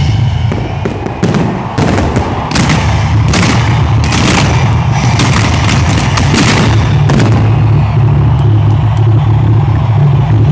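A rapid volley of firework bangs and crackles from the finale of a pyromusical fireworks show. It stops after about seven seconds, leaving a steady low rumble.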